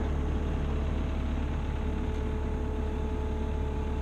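Engine idling steadily: a constant low hum with a few steady tones above it.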